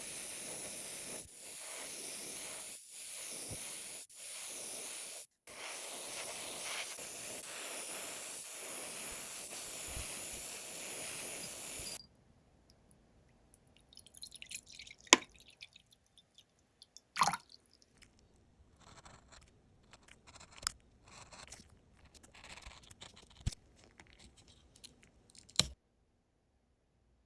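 Airbrush spraying with a steady hiss, broken by short pauses and cutting off suddenly about twelve seconds in. Scattered light clicks and taps follow, the sound of small model parts being handled.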